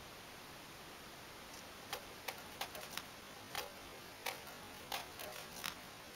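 A katana slicing again and again through an upright green target stalk: about ten sharp clicks in quick succession, starting about two seconds in and lasting roughly four seconds.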